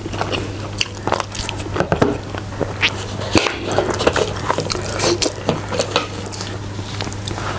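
Close-miked eating: wet chewing and lip smacks, with fingers squishing and mixing rice in a steel plate. A steady low hum runs underneath.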